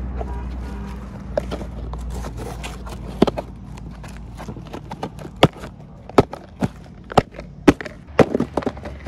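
Hands handling plastic-wrapped toy tractor models and packaging: a series of sharp, irregular clicks and taps starting about three seconds in, over a low steady rumble that drops away near the end.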